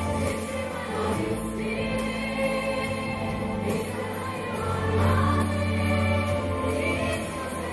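A woman singing a Ukrainian song into a microphone over instrumental accompaniment, holding long notes with slow rises in pitch.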